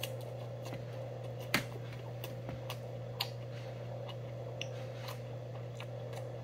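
A person chewing a mouthful of rice and laver: scattered wet mouth clicks and smacks, the sharpest about one and a half seconds in and again about three seconds in, over a steady low hum.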